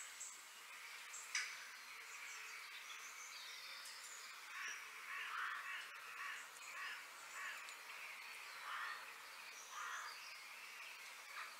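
Crows cawing repeatedly over a steady background of other birds chirping, with one sharp knock a little over a second in.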